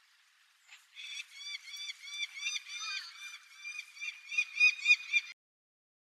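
Peregrine falcon calling: a rapid run of short harsh notes, about five a second, growing louder toward the end and then cutting off. The recordist takes the calls for the female begging the male for food.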